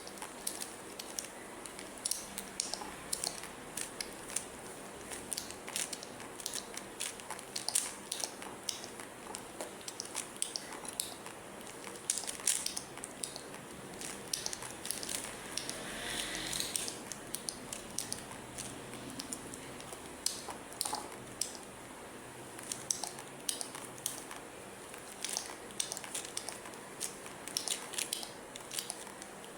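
Plastic Rubik's cube being twisted quickly by hand: a continual run of irregular clicks and clacks as the layers turn.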